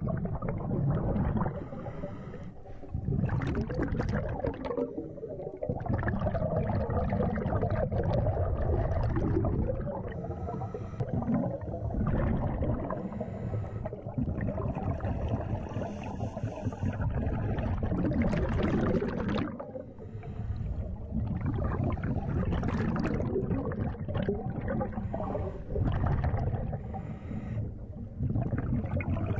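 A scuba diver breathing through a regulator underwater: exhaled bubbles rumble and gurgle in long surges, with brief lulls between breaths every few seconds.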